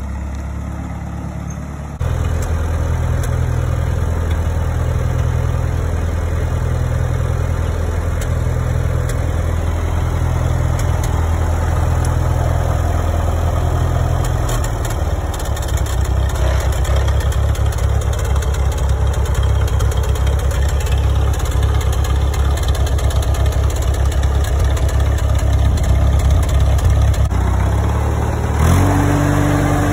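Massey Ferguson 135 tractor's four-cylinder gas engine running steadily, then revving up near the end.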